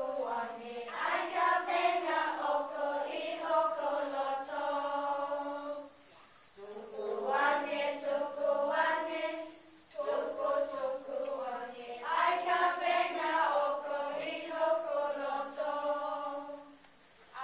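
Group of children singing a Tongan song together, in phrases with short breaks about six, ten and seventeen seconds in. A steady high-pitched hiss runs underneath.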